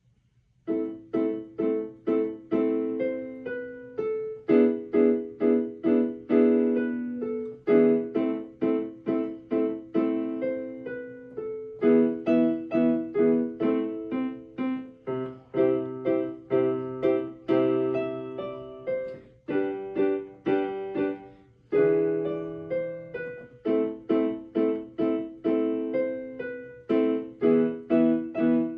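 Piano music: a rhythmic run of struck notes in repeated phrases, each note ringing and dying away.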